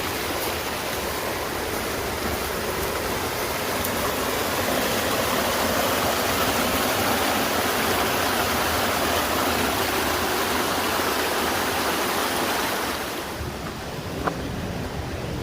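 Creek water rushing steadily over rocks. It fades away about thirteen seconds in, leaving a couple of light clicks near the end.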